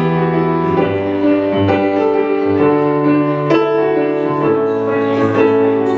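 Piano playing sustained chords in an instrumental passage between sung lines of a song, with a new chord struck about every second.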